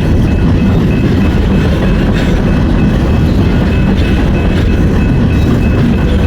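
Norfolk Southern freight train rolling past, loud and steady: a continuous rumble of railcar wheels on the rails, with a faint on-and-off high ringing tone from the wheels.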